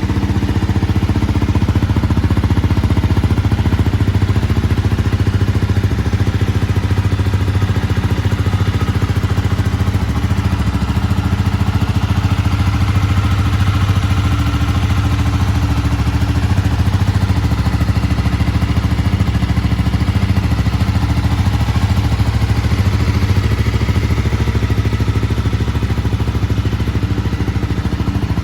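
Honda CB250R single-cylinder engine idling steadily through an aftermarket Beams silencer and Tadao header pipe.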